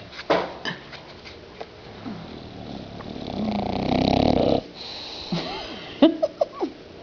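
Bulldog snoring in her sleep: one long rasping snore that swells over about two seconds and cuts off abruptly, followed a second and a half later by a few short, high squeaky snorts.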